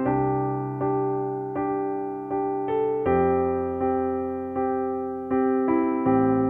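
Calm meditation background music on a soft electric piano: a note struck about every three quarters of a second over sustained chords, with the harmony changing about halfway through and again near the end.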